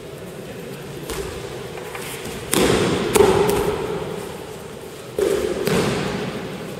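Aikido partners thrown down onto tatami mats in breakfalls: two falls about two and a half seconds apart, each a pair of heavy thuds half a second apart that fade out slowly in the hall.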